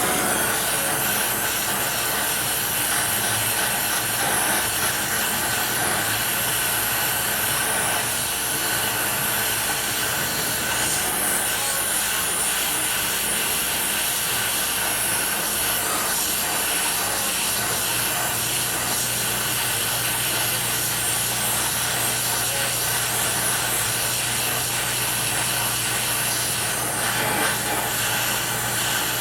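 Gas torch flame burning with a steady hiss, heating a rusted-on control arm nut to free the stuck bolt.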